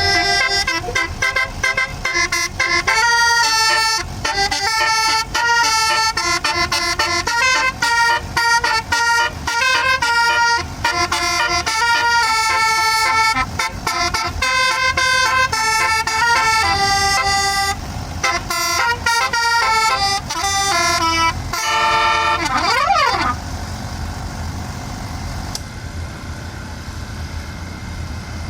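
A bus's 'basuri' telolet horn, a multi-trumpet musical air horn, plays a tune of held chords that change every half-second or so. Near the end it gives a quick up-and-down pitch sweep and stops, leaving only the steady sound of the engine running.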